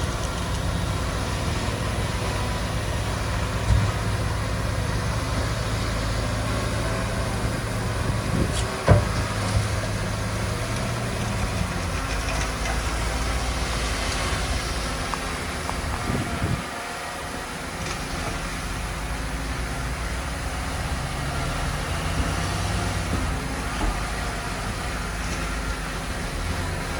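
Diesel engine of heavy earthmoving machinery running steadily with a low drone. There is a sharp knock about nine seconds in, and the low engine sound eases off briefly around halfway.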